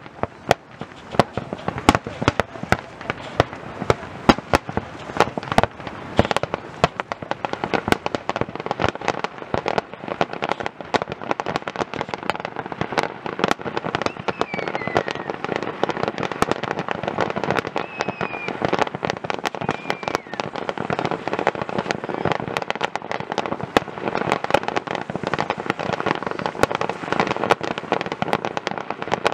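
Aerial fireworks display: rapid, continuous bangs and crackling. The bangs are biggest and most separate in the first several seconds, then merge into a denser, steadier crackle.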